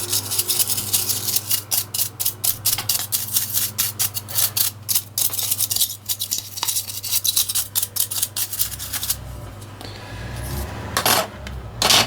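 A stiff-bristled, cut-down paintbrush scrubbing dust and hair out of a TV remote control's parts in quick, dense strokes. The strokes stop about nine seconds in, and a couple of brief scrapes follow near the end.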